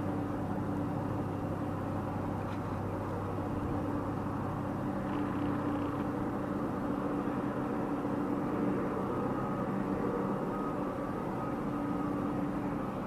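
An engine running steadily with a low, unchanging hum.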